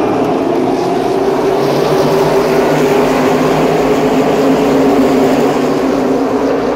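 A pack of NASCAR Cup stock cars' V8 engines droning together as the field passes the grandstand, the massed engine note drifting slightly higher over the few seconds.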